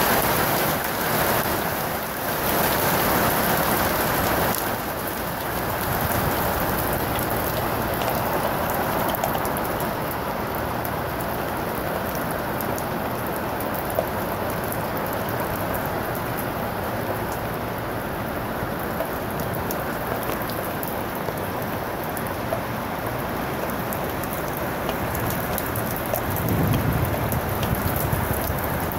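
Heavy rain mixed with small hail falling on a wooden deck and into standing water: a steady hiss of rain with many scattered sharp ticks of hailstones striking. A low rumble swells near the end.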